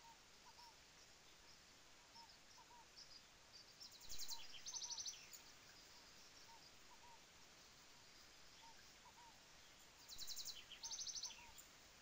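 Birdsong: two loud, high phrases about six seconds apart, each a fast trill followed by a buzzy held note. Under them a soft two-note call repeats every second or so, over a faint steady hiss of falling water.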